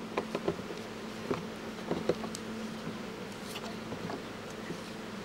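Light clicks and taps as a transparent oil filter is handled and screwed by hand onto a test rig's threaded mount, most of them in the first two seconds, over a steady low buzzing hum.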